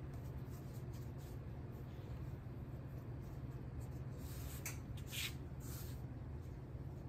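Faint rubbing and brushing of hands rolling floured bread dough up into a log on a silicone mat, with a few soft swishes a little past halfway.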